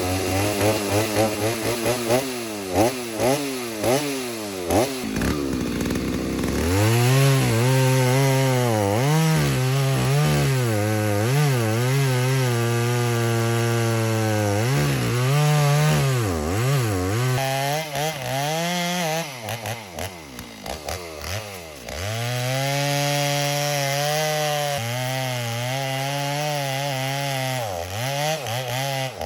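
Stihl MS290 two-stroke chainsaw blipped in short revs, then held at throttle in two long steady stretches with its pitch pulled down, the sound of the chain cutting into a poplar trunk, with dips and short revs between the cuts.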